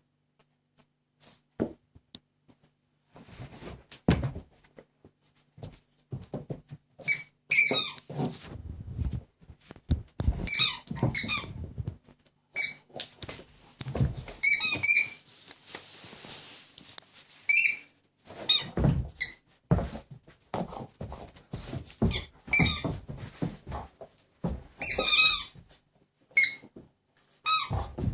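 Squeaky dog toy squeaking over and over in short, irregular clusters as a young Doberman chews and bites it, with soft low thuds between the squeaks.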